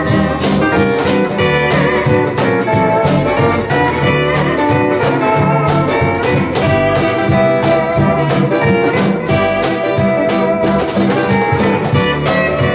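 Live instrumental Hawaiian band music: a Hawaiian steel guitar carries the melody over bass, ukulele, rhythm guitar and percussion, with a steady beat.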